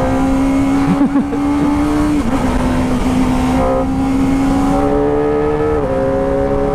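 Kawasaki Ninja ZX-25R's 249 cc inline-four on its stock exhaust, running at high revs under acceleration with a high, even wail. The pitch climbs slowly and steps down twice, about two and six seconds in, as it shifts up a gear.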